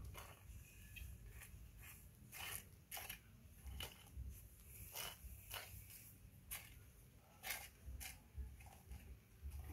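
Faint small clicks and scratches, about a dozen at uneven gaps, as a young macaque pokes at and handles a small crab on stone paving, over a low steady rumble.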